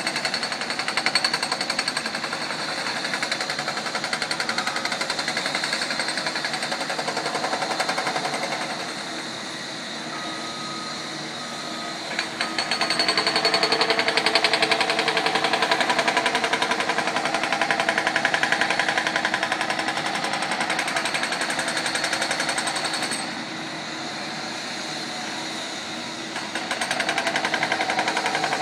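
Hydraulic breaker on a backhoe hammering pavement with rapid, steady blows. The hammering stops for a few seconds about a third of the way in and again near the end, leaving a steady machine hum.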